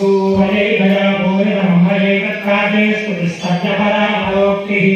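Male priests chanting Sanskrit mantras on a near-steady pitch, in short phrases with brief breaks for breath.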